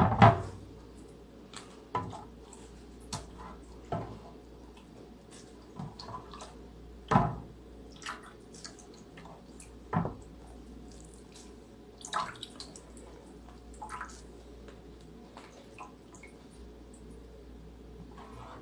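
Water dripping and splashing onto an etched aluminum-foil lithography plate in a ceramic dish, wetting it before inking. Short irregular knocks and taps as the foil and dish are handled, the loudest right at the start and two more about 7 and 10 seconds in.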